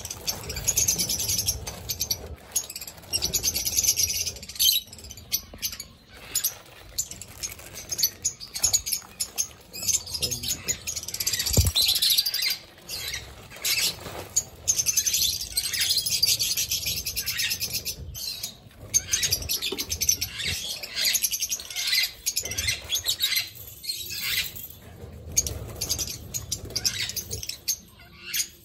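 Aviary lovebirds chattering: rapid, high-pitched calls that go on without a break, swelling into louder bursts and easing off again several times.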